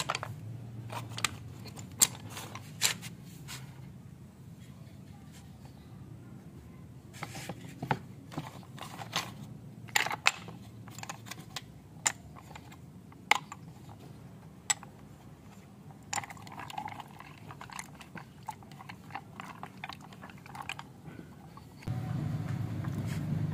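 Small thin wooden slats clicking and clattering against each other and against a plastic scoop as they are picked up and dropped in, in irregular sharp knocks. A louder low steady hum comes up near the end.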